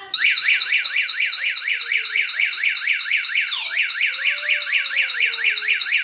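Loud electronic siren of a 220 VAC power-failure alarm sounding with a fast warble of about five rising-and-falling sweeps a second. It cuts in suddenly, the signal that mains power to the unit has gone off.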